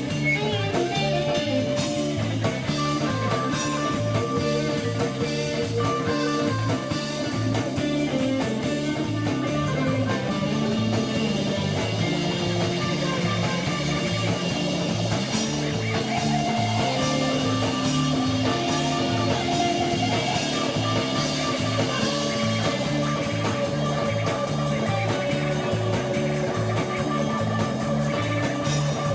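Live rock band jam: guitar playing melodic lines over bass and drums, with a steady beat.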